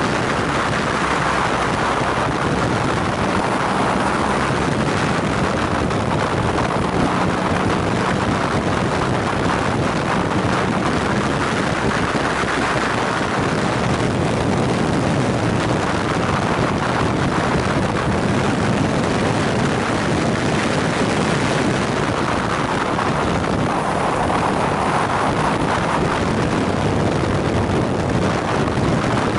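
BMW R nineT ridden at speed: steady wind noise on the microphone, with the bike's air-cooled boxer-twin engine running beneath it.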